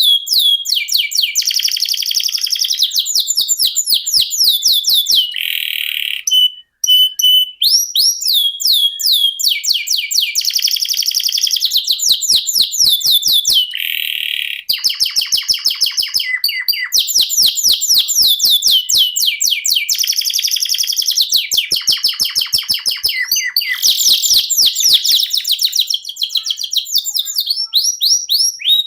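Domestic canary singing a long, unbroken rolling song: fast trills of repeated notes, switching to a new phrase every second or two, with one short break about seven seconds in.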